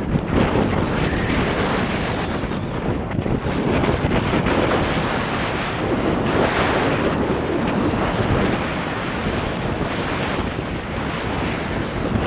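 Skis running fast on packed snow, a continuous hiss and scrape, with rushing wind buffeting the microphone.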